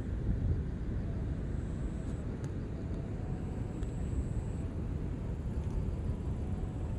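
Steady low outdoor rumble, with no distinct event standing out.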